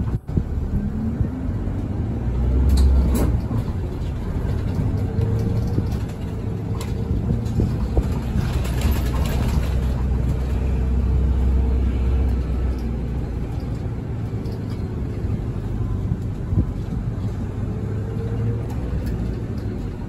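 A route bus's engine and running noise heard from inside the cabin as it drives: a steady low drone that swells twice, as if the bus is pulling harder.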